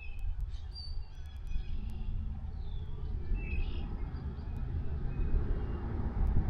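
Small birds chirping in short, scattered calls over a steady low rumble of wind on the microphone.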